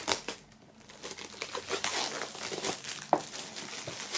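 Clear plastic shrink-wrap crinkling and tearing as it is peeled off a cardboard vinyl box set. A short quieter stretch comes first, then a run of dense crackles with one sharp snap about three seconds in.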